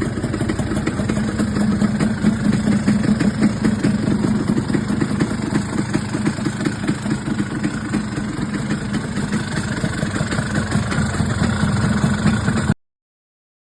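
A 1950s Vespa scooter's two-stroke single-cylinder engine idling with a rapid, even putter. It runs steadily and then cuts off abruptly near the end.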